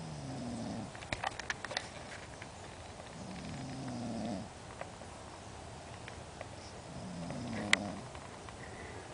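A person snoring: three long, drawn-out snores, evenly spaced about three and a half seconds apart, each rising and falling in pitch. A quick run of small clicks comes after the first snore, and a single sharp click, the loudest sound, comes during the last.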